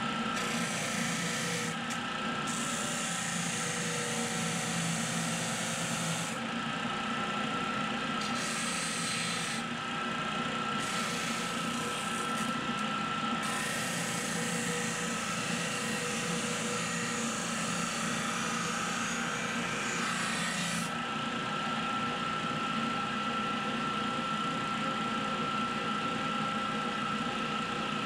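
A Syracuse Sander Co. D-2 15-inch disc sander running with a steady hum and a high steady tone, while an oak board is pressed against the spinning abrasive disc in several passes, each adding a loud hissing grind. The sanding stops a little over two thirds of the way in, and the sander keeps running on its own.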